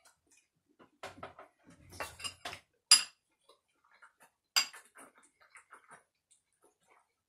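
Metal spoon scraping and clinking against a bowl while eating, with scattered small clicks and two sharp clinks, about three and four and a half seconds in.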